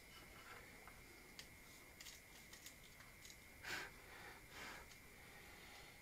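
Near silence with faint scattered clicks and rustles of a hard disk drive being handled, and two soft noisy swells a little past halfway.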